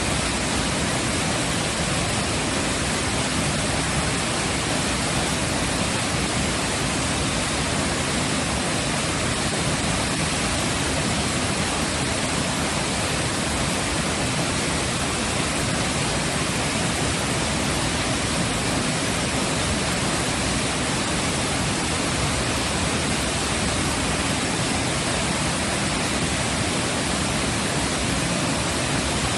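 Waterfall pouring, a dense, even rush of water that holds steady throughout.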